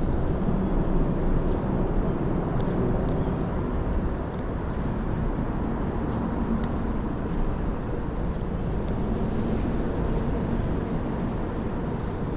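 Steady rush of creek water, with a faint low hum coming and going and a few small scattered clicks.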